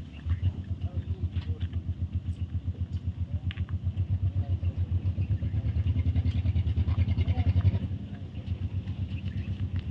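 A small engine running with a steady low chugging, about eight beats a second, growing louder and then easing off after about eight seconds.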